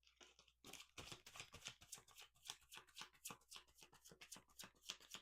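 A deck of oracle cards being shuffled by hand: a quick, uneven run of faint soft card clicks.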